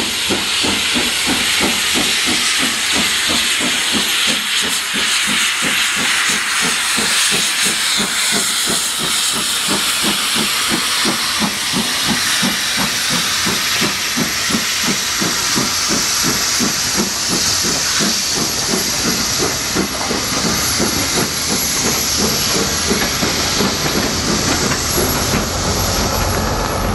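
Double-headed LMS Black Five 4-6-0 steam locomotives pulling a train away. A loud, steady hiss of steam from the open cylinder drain cocks runs over a rapid, even beat of exhaust.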